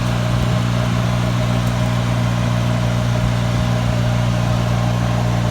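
Golf cart running at a steady speed, a steady low hum that holds one pitch.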